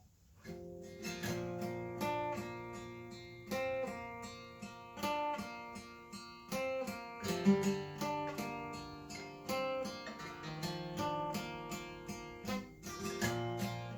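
Acoustic guitar strumming chords in a steady, even rhythm, changing chord twice.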